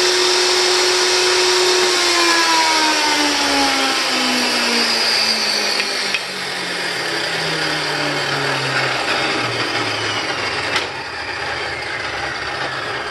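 Table saw running steadily, then switched off about two seconds in, its motor and blade winding down in a falling pitch over the following seconds. A couple of sharp knocks come partway through and near the end.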